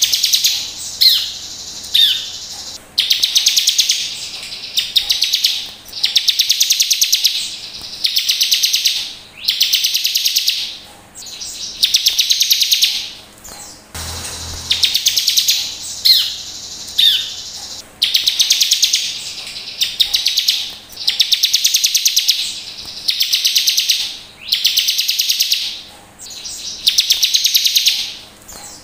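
Bar-winged prinia (ciblek) singing loudly: a steady series of high, rapid trilled phrases, each about a second long with short pauses between, with a few sharp down-slurred notes near the start.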